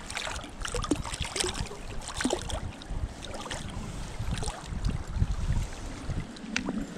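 River water splashing and sloshing irregularly as a landed brown trout is handled at the water's edge. Low wind rumble on the microphone runs under it.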